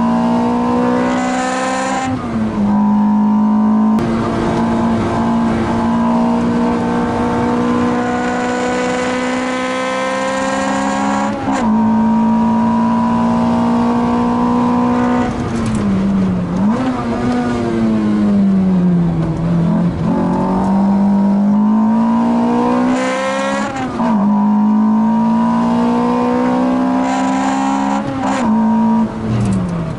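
Car engine driven hard on a race circuit, held at high revs for long stretches with brief dips in pitch at gear changes, and a long falling note around the middle before it climbs again.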